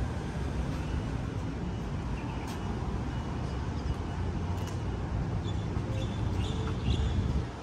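City street traffic ambience: a steady low rumble of vehicles, with a few faint high chirps near the end.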